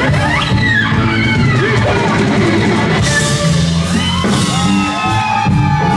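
Live blues-rock band playing loud: electric guitar lead with bending, sliding notes over bass and drums.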